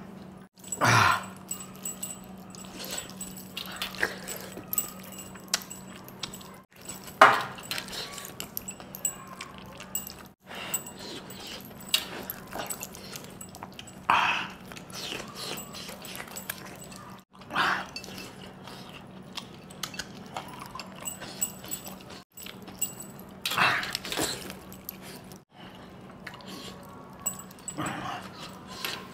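Close-up eating sounds of a man eating mutton curry and rice by hand: wet chewing and lip-smacking with many small clicks, broken every few seconds by a loud, short mouth noise. A steady low hum runs underneath.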